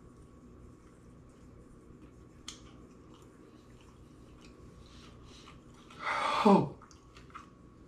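A man chewing a spicy chicken wing, with soft wet mouth clicks and smacks. About six seconds in comes a loud, short cry that slides down in pitch, a reaction to the heat of the wing.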